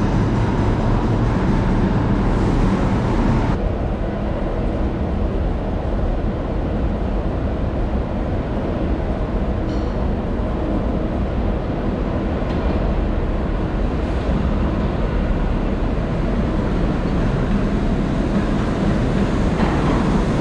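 New York City subway train running, a steady low noise with a faint hum; some of the higher hiss drops away about three and a half seconds in.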